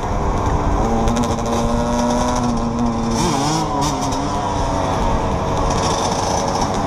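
Sport quad and dirt bike engines running as the group rides along, with steady engine tones that waver in pitch about three seconds in as the throttle changes. A heavy low rumble of wind sits on the helmet-camera microphone.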